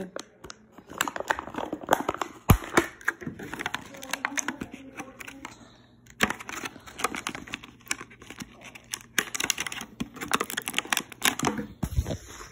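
Clear plastic blister packaging from a toy car being handled and crinkled: rapid, irregular crackles and clicks, with a short lull about six seconds in.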